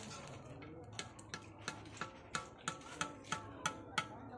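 Metal ladle or skimmer tapping again and again on the rim of a kadai of frying oil: about three short ringing clicks a second, starting about a second in, over a faint steady hum.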